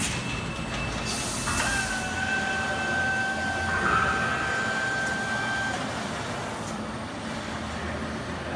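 Motoman EA1900 welding robot arms and their RM500 positioner running on their servo drives: a steady whine with several high, even tones that start about a second and a half in and cut off together about two-thirds of the way through, over a constant machinery hum.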